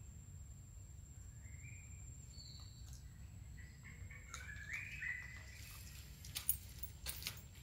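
Birds chirping in short high calls, a cluster of them around the middle, over a steady low background rumble; a few sharp clicks near the end.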